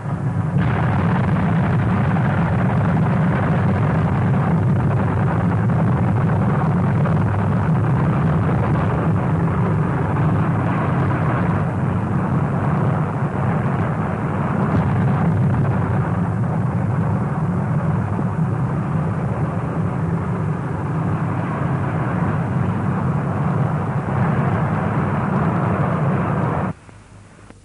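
Steady deep roar of a V-2 rocket's alcohol and liquid-oxygen engine firing, which cuts off abruptly near the end.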